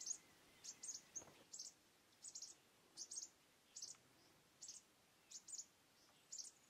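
Faint high-pitched chirping in short clusters of a few quick chirps, repeating evenly about every 0.7 seconds.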